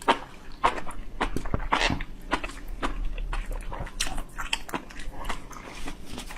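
Close-miked eating sounds: chewing and slurping, with a dense, irregular run of wet, crackly clicks.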